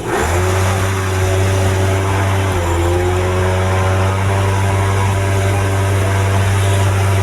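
Motor vehicle engine running steadily, with a loud low drone and tyre and road noise; the engine note dips slightly and picks up again about two and a half seconds in.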